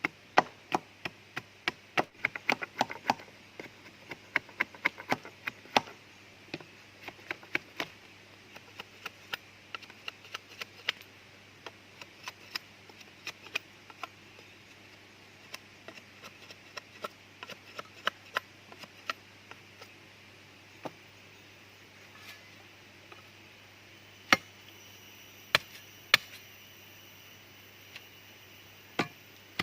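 Repeated sharp blows of a blade chopping wood: quick runs of several strikes a second in the first half, thinning to scattered strikes, then a few louder single blows near the end.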